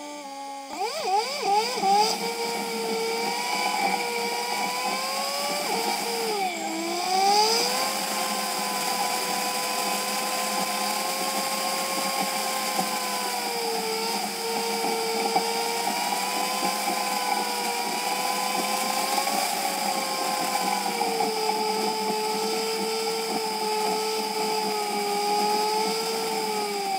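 High-pitched engine whine from a moving vehicle, its pitch climbing in several quick rises at the start, dipping sharply about six seconds in, then holding fairly steady at cruising speed.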